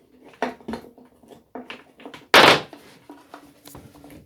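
Hands working on a strimmer's old fuel line: scattered light clicks and knocks, with one much louder knock a little over two seconds in. The old line snaps off altogether.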